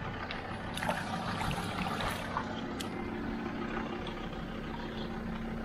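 Ford Ranger pickup's engine running steadily as the truck sits in water in a drainage ditch, with water trickling and lightly splashing around it.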